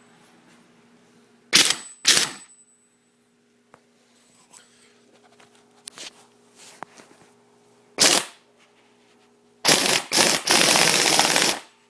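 Old pneumatic impact wrench triggered in short bursts on compressed air: two quick bursts, a third a few seconds later, then a longer run of about two seconds near the end.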